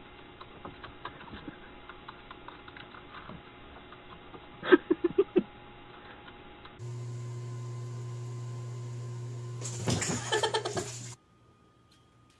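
Light clicking of computer keyboard keys as a hand types, broken about five seconds in by a quick run of five loud, short pitched sounds. After that comes a steady low hum, with a loud noisy burst near the end.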